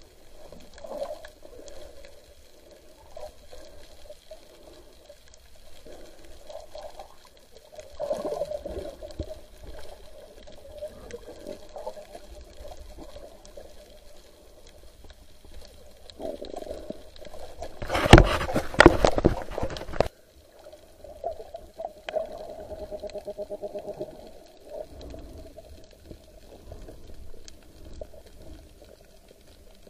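Underwater water noise picked up by a submerged camera: a muffled, shifting gurgle and slosh, with a much louder rushing, crackling burst lasting about two seconds near two-thirds of the way through.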